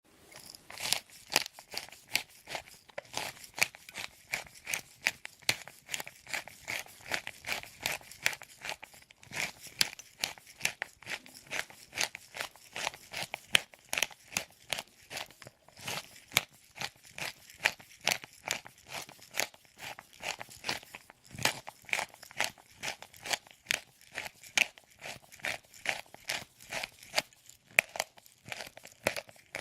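Manual pepper mill grinding peppercorns: a continuous run of rapid gritty crunches and clicks as the mill is turned.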